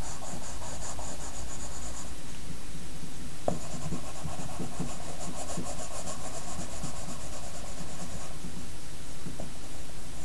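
Pencil scratching on paper in quick back-and-forth shading strokes, in two stretches: about two seconds at the start, then again from about three and a half to eight seconds in, over a steady background hiss.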